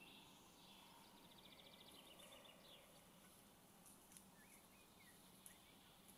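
Near silence with faint birdsong: a few short trills in the first half and scattered chirps later, with a couple of soft clicks.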